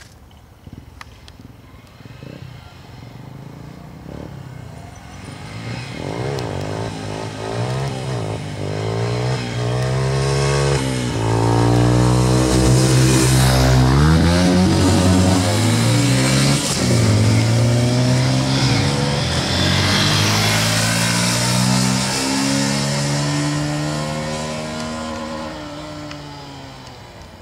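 Several 125 cc single-cylinder four-stroke motorcycles approach and accelerate up through the gears, the engine pitch climbing and then dropping at each shift. They pass close in two loud waves and ride away, fading out near the end.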